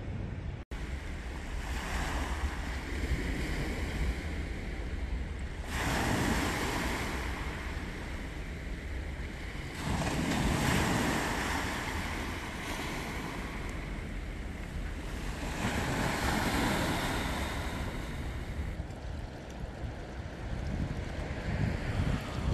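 Sea waves washing in over a pebble beach, swelling and falling back about every four to five seconds, with wind rumbling on the microphone underneath.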